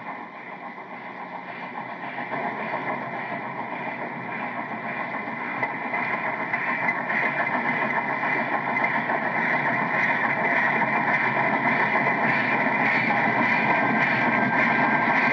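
Steam train running, a dense steady rumble that grows steadily louder as it approaches and passes close by.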